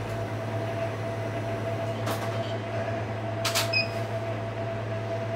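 Steady electrical hum of running machinery, with a constant mid-pitched tone over a low drone. Two short clicks cut through it, about two seconds and three and a half seconds in, the second followed by a brief high beep.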